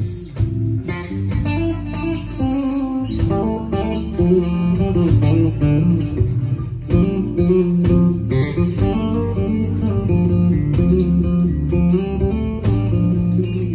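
Live band playing, with an electric bass guitar loud and melodic in the low range over a drum kit and keyboards.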